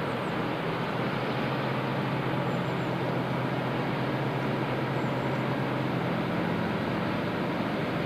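Distant diesel locomotive engine drone, a steady low hum, as a heavy freight train approaches up a curving mountain line.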